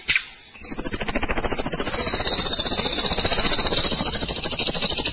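Ashy drongo giving a long, loud, fast rattling trill (the 'roll tembak' sought in drongo song), starting about half a second in.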